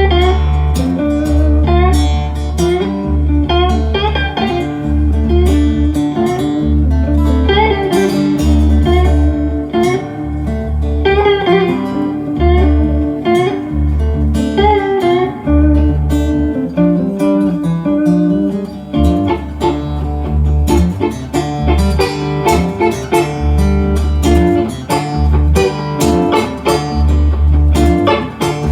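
Live band playing an instrumental passage with no vocals: quick picked guitar lines over a steady run of deep low notes.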